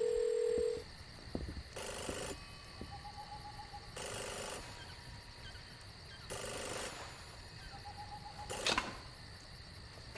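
Quiet, sparse stretch of the song: soft swishes about every two seconds, a short held tone at the start and two brief trilling chirps.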